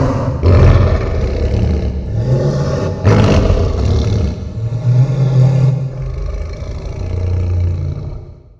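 Godzilla roar sound effect: a loud, rumbling monster roar in several surges that fades out just before the end.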